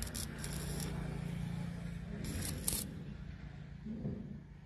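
Stick (arc) welding on square steel tubing: the arc crackles and sizzles in two short bursts, one at the start and another about two seconds in, over a steady low hum.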